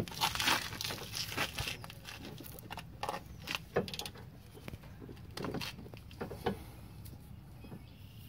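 Irregular metallic clicks and clinks of a socket on a wobble-end extension being fitted onto a brake caliper bracket bolt, with light handling and rustling between them.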